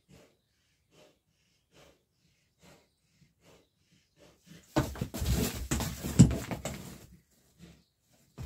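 Laboured breathing from cattle lying on their side, short puffs a little faster than one a second. From about five to seven seconds in, a loud, rough, rasping noise drowns them out.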